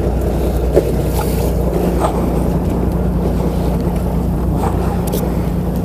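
Boat engine running steadily with a low hum, over wind and sea noise, with a few faint small knocks.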